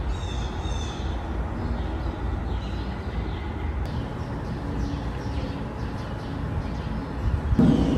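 City street ambience: a steady low rumble of distant traffic with birds calling now and then. Music comes in near the end.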